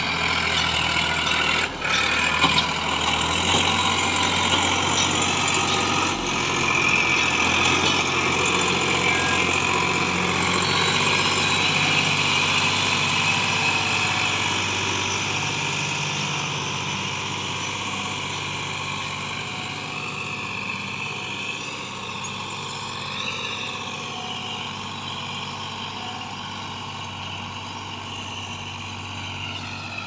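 Farmtrac 60 tractor's diesel engine running steadily as it pulls a heavily loaded trailer over rough field ground, growing gradually fainter over the second half as it moves away.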